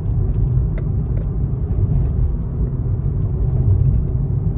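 Steady low road and engine rumble heard from inside a moving car's cabin, with a few faint clicks.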